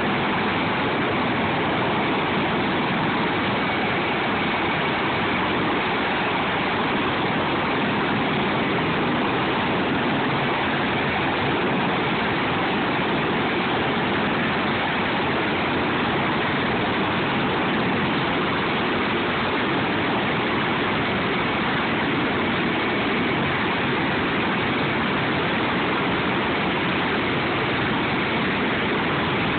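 Sikorsky MH-53E Sea Dragon helicopter flying low and slowing to a hover: a loud, steady rush of rotor and three-turbine engine noise with a faint high tone on top.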